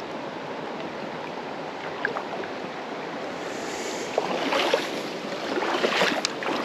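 Flowing creek water making a steady rushing sound, growing louder and rougher in the second half with a few short sharp sounds near the end.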